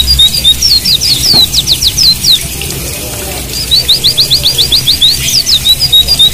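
White-eyes (pleci, Zosterops) singing: fast runs of sharp, high, downward-flicking notes, several a second, running into more varied twittering phrases. The song breaks off for about a second in the middle and starts again.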